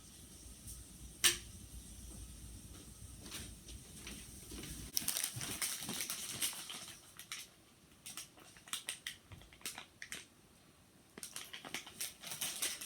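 Small objects being handled: scattered clicks and taps, with one sharp click about a second in and a stretch of rustling, crackling noise in the middle.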